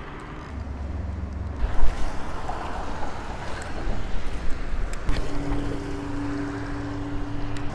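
Steady rush of water pouring over a spillway weir, with wind on the microphone. A steady low hum comes in about five seconds in.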